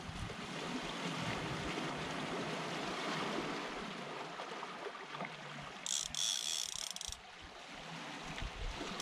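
Sea waves washing over a rocky shoreline, with wind on the microphone. About six seconds in, a brief high rasp lasts about a second.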